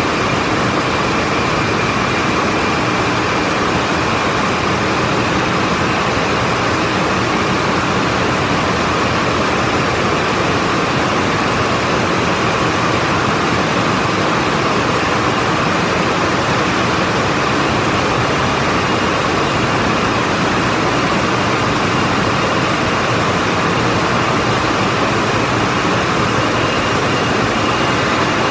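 Rows of water jet looms weaving at high speed together, a loud, steady, dense machine clatter with no letup.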